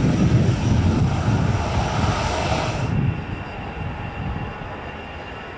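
Airbus A320's CFM56 jet engines running at taxi power as the airliner taxis close by, a steady loud jet noise. About three seconds in, the sound cuts abruptly to a quieter, more distant steady jet hum that fades gradually.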